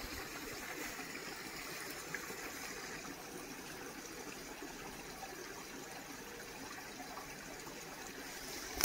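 Water running steadily in a stream, an even rushing that doesn't change.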